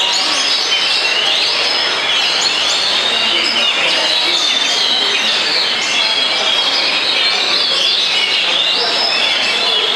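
Several Oriental magpie-robins (kacer) singing at once. Their loud whistled notes overlap, with rising sweeps repeating about once a second.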